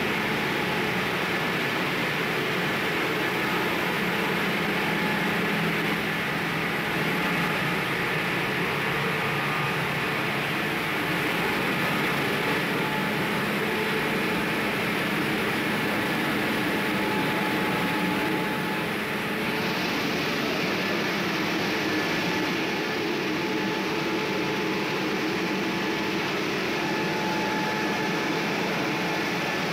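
A 1 ton-per-hour combined rice mill running: its electric motors, blowers and grain-processing machines make a steady mechanical noise with a few steady whining tones through it.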